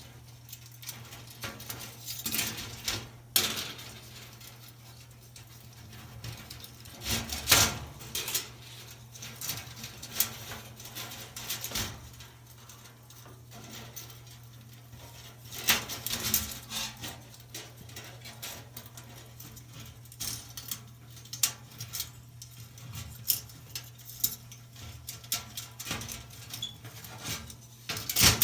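Burnt-out electric dryer heating element coil being pulled out of its porcelain insulators by hand, with scattered light metallic clinks, jangles and scrapes against the sheet-metal element housing. A steady low hum runs underneath.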